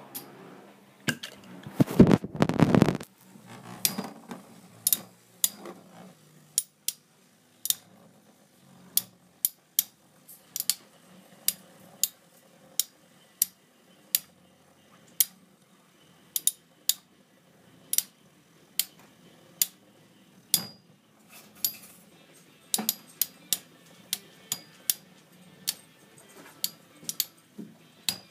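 Two metal-wheel Beyblade tops, Poison Serpent and Evil Gemios, spinning against each other in a plastic stadium, with sharp clicks about once or twice a second as they knock together over a faint whirr. There is a loud, rough burst of noise about two seconds in.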